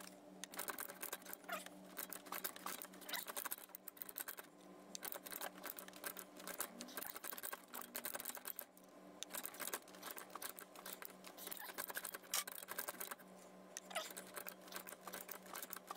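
Rapid faint clicking of a manual ratcheting pipe threader cutting threads on 1-inch black iron pipe, sped up, over a steady low hum.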